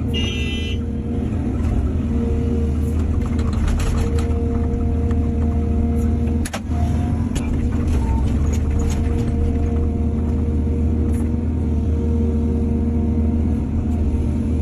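Heavy diesel excavator engine running steadily under load, a low continuous drone, with scattered metallic knocks and clanks from the machine at work. A sharp knock comes about six and a half seconds in.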